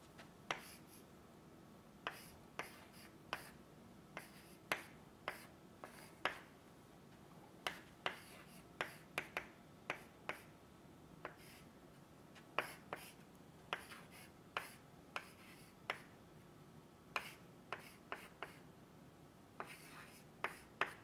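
Chalk writing on a blackboard: a run of short, sharp taps and clicks at irregular intervals, sometimes two or three in quick succession, as each symbol is struck and drawn.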